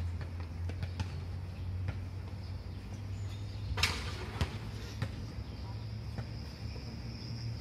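Scattered sharp thuds of basketballs bouncing on an outdoor court, about one a second, the loudest about four seconds in, over a steady low hum.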